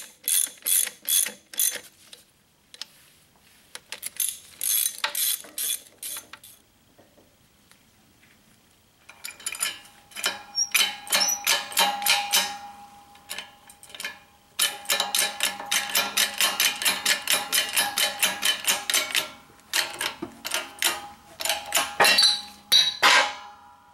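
Ratchet wrench clicking as bolts on a tractor transmission are run in, in several bursts separated by short pauses. The first strokes are slow, about three clicks a second; the later bursts, from about nine seconds in, are quicker and denser.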